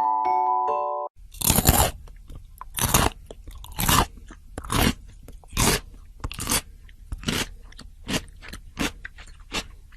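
Close-up crunching as crunchy food is chewed, about a dozen loud crunches roughly one a second. Short mallet-percussion music ends about a second in.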